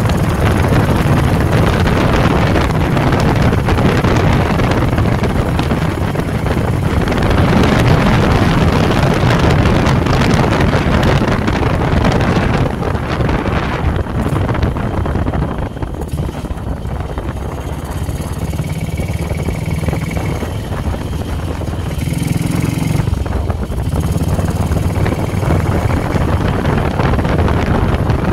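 Motorcycle engine running on the move, a steady low rumble with wind rushing over the microphone. It eases off about halfway through and picks up again near the end.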